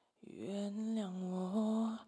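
Unaccompanied singing voice starting about a quarter second in and holding one long note that steps slightly up and down in pitch, the opening of a vocal duet performance.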